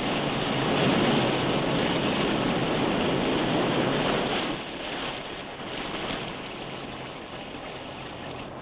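Steady rushing water noise of rain and surf, louder for the first four seconds or so and then settling to a softer hiss. It is heard through an old film soundtrack that cuts off the highs.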